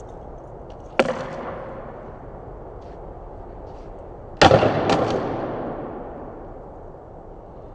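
A skateboard striking a concrete floor twice: a sharp clack about a second in, then a louder slap a little past the middle followed by two quick rebound clacks. Each echoes for a couple of seconds under the large roof.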